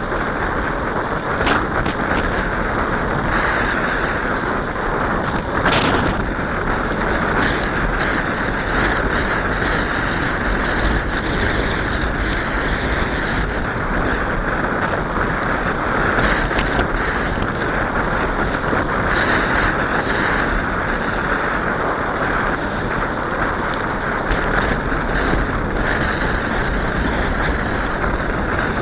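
Steady rush of wind and tyre noise from a bicycle being ridden. A couple of sharp clicks come about a second and a half in and again near six seconds.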